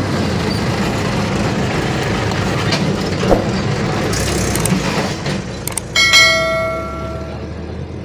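A perforated iron frying ladle clinks as it works in an iron kadai of frying oil, over a steady low rumble. About six seconds in, metal strikes the pan with a sharp clang that rings for about a second.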